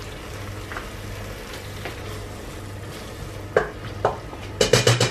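Thick tomato sauce sizzling as it fries in a stainless steel pot, stirred with a wooden spoon. Near the end come a few quick, loud knocks.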